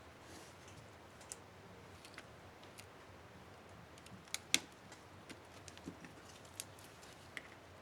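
Small sharp plastic clicks and ticks from an Acer One 725 laptop's space bar keycap being handled and fitted to the keyboard, with two louder clicks about halfway through.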